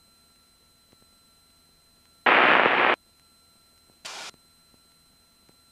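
Aircraft com radio in the headset audio: a loud burst of static lasting under a second about two seconds in, then a fainter, shorter hiss about four seconds in, over a faint steady electronic hum. The ATIS broadcast has broken off while the tower records a new one.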